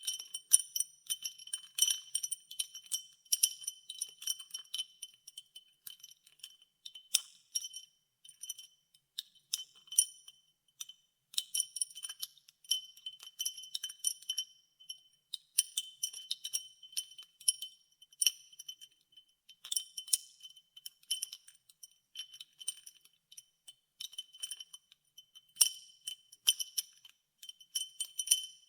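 Ice cubes in ice water being stirred, clinking against the sides of their container in irregular flurries of bright, ringing clinks with short pauses between.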